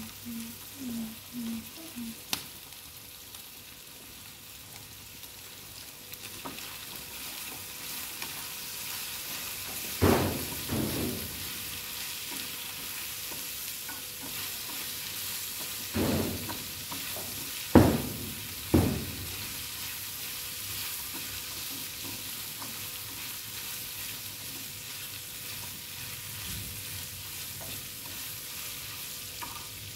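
Pieces of pork belly sizzling as they stir-fry in a small pan over a gas burner. Chopsticks turn the meat with a few sharp knocks against the pan, the loudest about a third of the way in and just past halfway.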